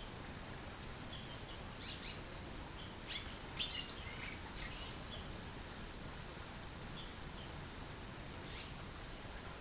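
Red-rumped swallow singing: short twittering chirps in scattered bursts, busiest from about two to five seconds in, with a few more later, over a faint steady background noise.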